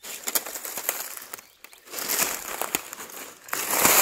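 Dry grass and brush crunching and rustling underfoot as someone pushes through tall dry scrub, in uneven crackling stretches with two short pauses and the loudest stretch near the end.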